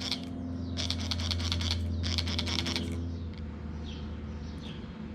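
Hand spray bottle squirting soapy water in quick hissing bursts, two of about a second each in the first three seconds, in a leak-down test of an air suspension fork. A steady low hum runs underneath.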